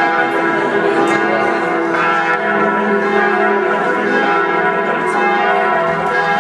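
Church bells pealing: many bells struck one after another, fresh strikes coming about every second, their tones overlapping and ringing on.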